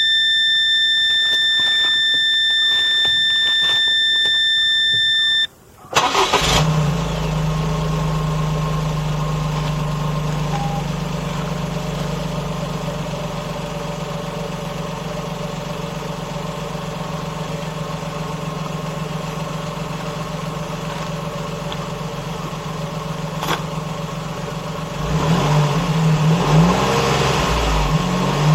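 A steady electronic beep for about five seconds, then a vehicle engine cranks and starts about six seconds in and settles into a steady idle. It is revved a few times near the end.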